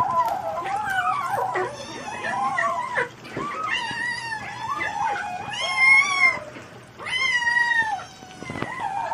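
A mother cat and her kittens mewing over one another while they eat. The calls are rising and falling, and there are a few longer, clearer mews in the second half.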